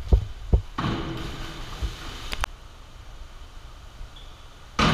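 Diving springboard thudding twice as a diver bounces and takes off, then a longer rush of noise echoing in the indoor pool hall. Another loud burst of noise comes near the end.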